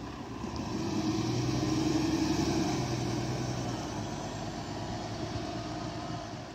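City bus passing close and driving away: a steady drive hum with tyre hiss, loudest about two seconds in, then fading as the bus pulls into the distance.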